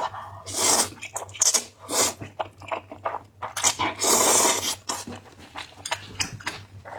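A person slurping and chewing spicy noodles: a run of separate wet slurps and mouth smacks, with one longer slurp about four seconds in.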